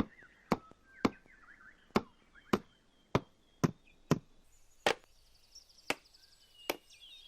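A hammer tapping nails into wooden boards: about ten sharp, separate knocks at uneven intervals, over faint birdsong.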